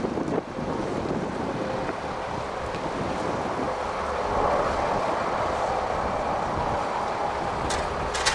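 Wind buffeting the microphone over a steady engine drone, swelling a little midway, with a few sharp clicks near the end.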